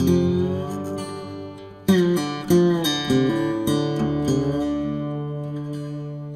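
Acoustic guitar music: chords struck and left to ring, with a fresh chord about two seconds in and several more following in quick succession.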